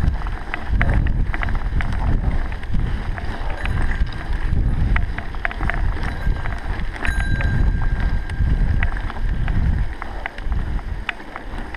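Wind buffeting the microphone in uneven gusts, with scattered sharp clicks and rattles and a brief high squeal about seven seconds in.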